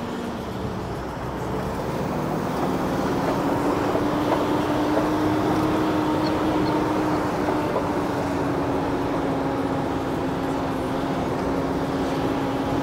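Mitsubishi pickup driving on a dirt track, heard from inside the cab: a steady engine hum over tyre and road noise. The engine note dips briefly about a second in, then rises and holds even.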